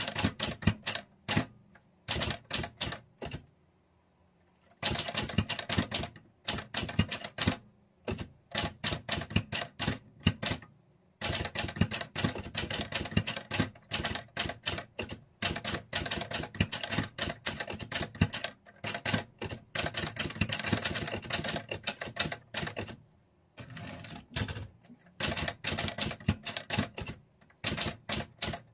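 Olivetti Linea 98 manual typewriter with a Hangul dubeolsik keyboard being typed on: fast runs of sharp key strikes, with brief pauses about four seconds in and around eleven seconds, and a softer stretch a little after twenty-three seconds.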